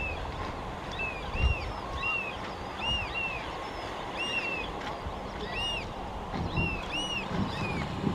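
Black oystercatchers piping: a run of sharp whistled calls that rise and fall, several a second and sometimes overlapping, over a low rush of water.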